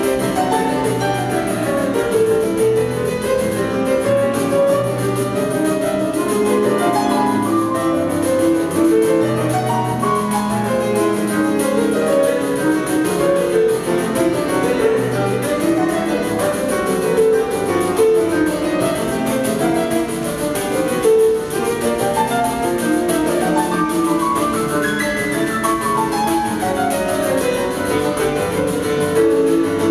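Grand piano playing a flowing instrumental piece, with quick runs of notes rising near the end.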